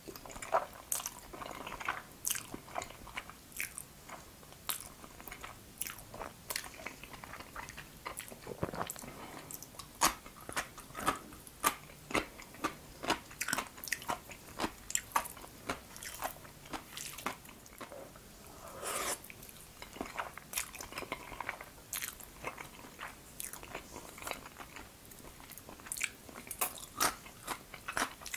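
Close-miked eating sounds of a person chewing jajangmyeon noodles in black bean sauce: many short, sharp wet clicks and crunches, with a few longer sucking sounds around two-thirds of the way through.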